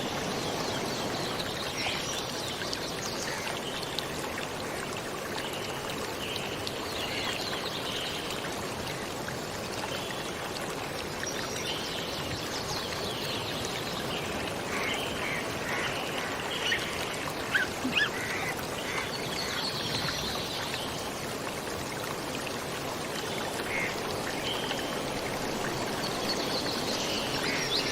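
Sea water at high tide washing and rushing steadily, a continuous even rush with a few faint, short, high chirp-like sounds scattered through it.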